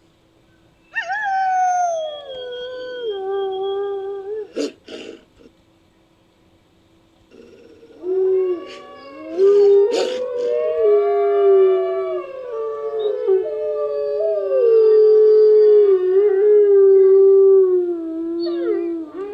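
Wolf howls used as creature sound effects. One long howl falls in pitch and is followed by two short sharp sounds. After a pause comes a longer howl with overlapping voices that wavers and slowly falls before cutting off near the end.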